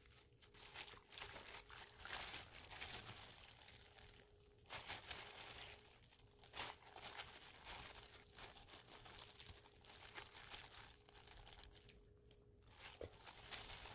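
Faint, irregular crinkling of a disposable plastic glove and wet squishing as brined perilla leaves are squeezed out by hand in a bowl of water, wringing them out before pickling.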